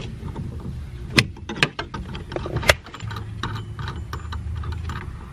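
Sharp metal clicks and clinks of a wrench and nut as the top nut of a rear shock absorber is worked loose and spun off its shaft, with a few louder clicks among lighter taps.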